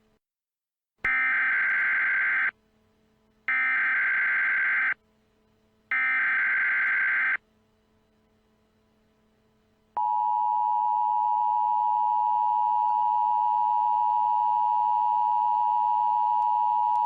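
Emergency Alert System SAME header: three identical bursts of digital data screech, each about one and a half seconds long with a second's pause between. About ten seconds in, the steady two-tone EAS attention signal (853 and 960 Hz) begins and holds.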